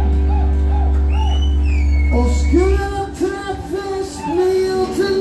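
Live band with electric guitars playing, a male lead vocal singing over them. A deep held bass note sounds until almost three seconds in, after which the singing line comes to the fore.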